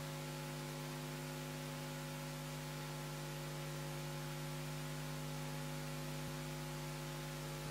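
Steady electrical mains hum with a buzzy edge over a constant hiss, unchanging throughout.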